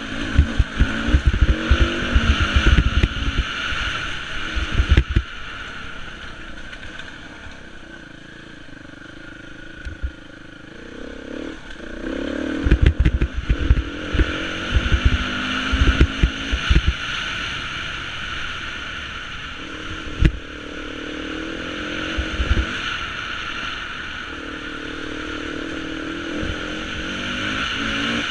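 Beta 350 four-stroke enduro motorcycle ridden on a rough dirt trail, the engine revving up and falling back again and again as the rider works the throttle. Heavy low thumps and rattles come in clusters near the start and again midway.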